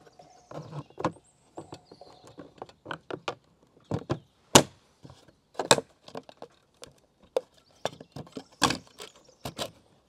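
Hard plastic dry verge caps being handled and fitted against roof tiles: an irregular run of clicks and knocks, the loudest about four and a half seconds in.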